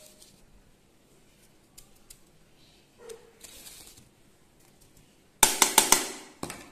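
A quiet stretch with a few faint ticks, then near the end about a second of rapid, loud, sharp clicks and clatter, like utensils or the phone being handled.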